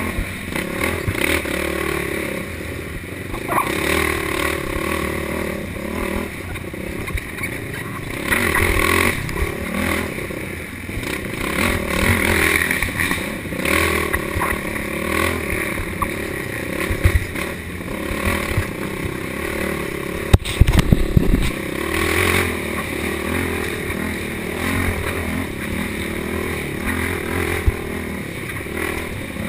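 Race quad (ATV) engine revving up and down with the throttle, heard from an onboard camera, with rattling and clatter as it rides over rough ground. A hard knock with a low rumble about twenty seconds in is the loudest sound.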